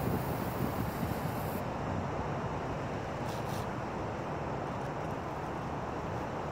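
Steady outdoor background noise: wind on the microphone over a low rumble of road traffic, with a high hiss for the first second and a half.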